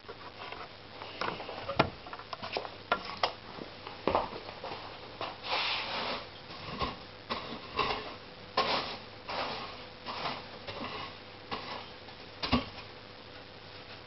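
Firewood logs being handled and loaded into the firebox of a wood-burning furnace: irregular knocks and thuds as the logs strike each other and the iron, with a few short scraping sounds as they slide in.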